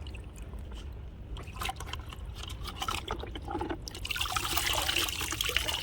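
Water being poured over a small toy pizza bike to wet it, dripping and trickling off it, then running louder and steadier about four seconds in.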